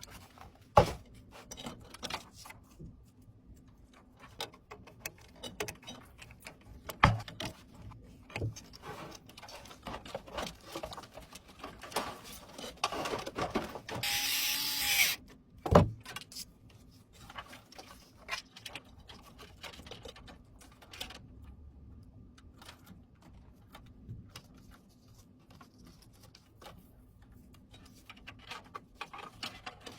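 Hands assembling a desktop PC: scattered clicks, taps and knocks of parts and screws being handled and fitted. There is a short, loud burst of noise about fourteen seconds in, with sharp knocks just before it and one just after.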